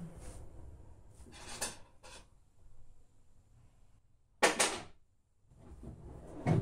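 Bedside-table drawer being rummaged through by hand, its contents rattling and shifting. There is a short scraping rattle about a second and a half in, and a louder double clatter about four and a half seconds in.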